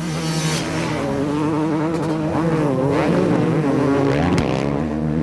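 Several motocross bikes' engines revving hard, their pitch rising and falling as they accelerate through a corner and out again.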